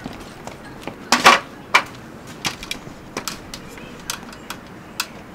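Irregular clicks and knocks from a wooden stepladder being set down on concrete and climbed, and from hands working on a roof tent's cover. The loudest is a short clatter a little after a second in, followed by a sharp knock.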